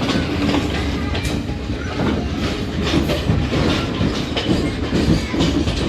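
Passenger train running, heard from on board, its wheels clattering over the rail joints with a steady rumble and irregular clicks.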